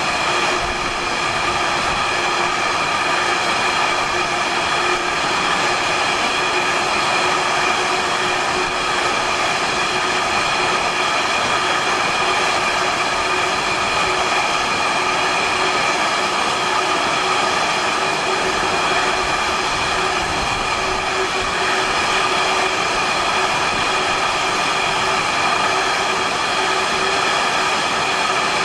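Container flat wagons of a long intermodal freight train rolling past on the track: a steady rolling noise of wheels on rails, with steady ringing tones over it.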